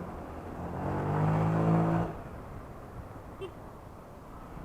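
Honda PCX scooter's single-cylinder four-stroke engine accelerating, its note rising under throttle, then dropping off suddenly about two seconds in as the throttle is closed, leaving a lower running and road noise.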